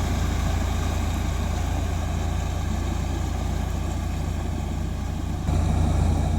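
Engine of a tractor or combine harvester running steadily, growing louder about five and a half seconds in.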